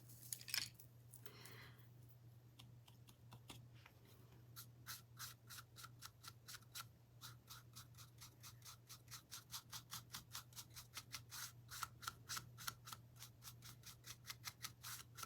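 Faint, quick scratchy strokes of a paintbrush dabbing paint onto a small wooden cutout, several a second, coming steadily from about four seconds in over a low steady hum.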